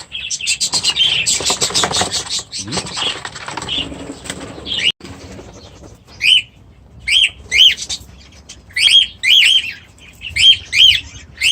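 Aviary birds flapping their wings rapidly for the first few seconds, mixed with chirps. After an abrupt break a bird repeats short chirps, mostly in pairs, about once a second.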